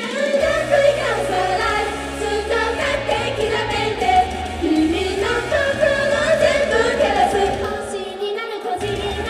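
Female idol group singing a pop song together over loud amplified music with a heavy bass line; the bass drops out for a moment near the end.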